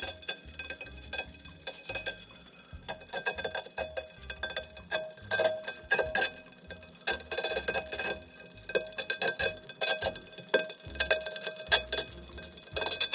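Tacx Neo Series trainer's motor brake making irregular metallic ticks and rings, like metal touching metal as it turns. This is the sign of metal pieces or dust stuck to the magnet in the motor brake.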